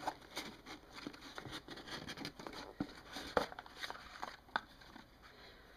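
Faint handling noise of a coiled cable being lifted out of a cardboard box tray: soft scattered rustles and light clicks, with a few sharper clicks in the second half.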